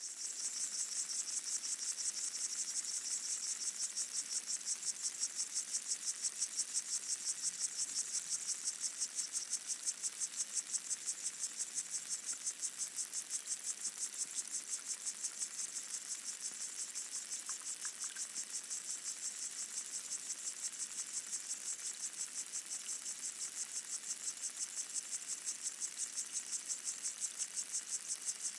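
Underwater chorus of pygmy water boatmen (Micronecta) stridulating, heard through a hydrophone: a dense, high-pitched insect chirring that pulses a few times a second, fading in at the start.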